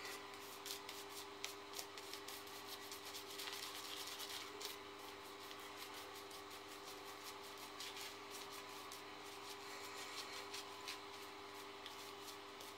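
Shaving brush swirled quickly over a lathered face: a faint, rapid, continuous bristly rubbing of many short strokes, over a faint steady hum.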